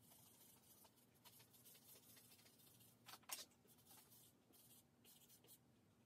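Faint scratching of vine charcoal stroked across drawing paper as dark areas are shaded in, in short uneven strokes, the loudest a little past three seconds in.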